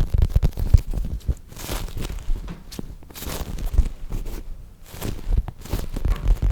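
Squishy toys being squeezed and rubbed right at the microphone: dense soft crackles and rubbing, with a few short airy swishes.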